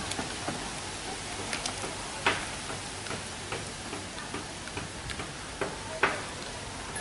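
Scattered, irregular knocks and clicks of tools and fittings being handled against a boat's wooden and metal structure, two of them louder, about two seconds in and near the end, over a steady background hiss.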